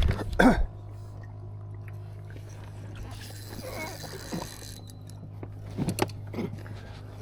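A steady low hum, with a short loud knock in the first half-second and a few light clicks and knocks later on.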